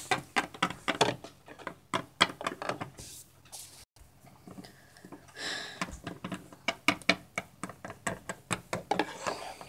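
Quick, irregular clicks and taps of small plastic toy figures and props being handled and set down on a wooden tabletop.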